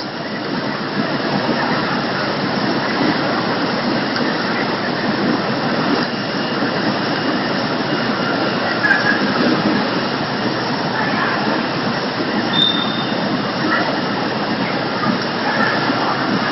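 Automatic poultry processing line running: steady, loud machinery noise with a few brief high squeaks over it.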